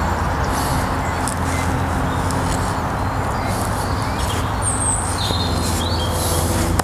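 Steady low background rumble, with a few short high bird chirps about two-thirds of the way through.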